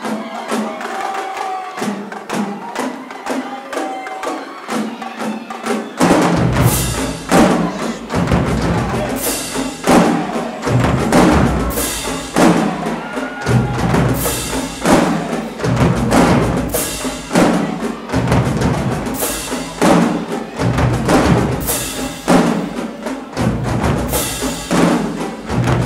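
Marching drumline playing a cadence: snare and tenor drums in rapid strokes, then about six seconds in the bass drums and hand-held crash cymbals join with heavy hits and crashes about every second.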